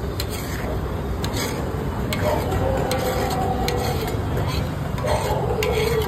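Metal utensil stirring and scraping in a pan of egg curry, with irregular sharp clinks against the metal, over a steady low rumble.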